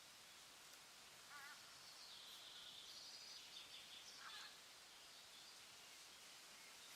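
Faint bird calls over a steady hiss of forest ambience: a short wavering call about a second in, then a few higher calls over the next few seconds.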